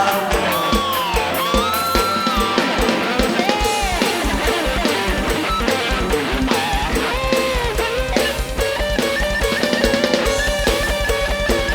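Molam band playing an instrumental passage between sung verses: a lead melody with sliding, bending notes over a steady kick-drum beat. About seven seconds in, the kick drum quickens to a faster, denser pulse.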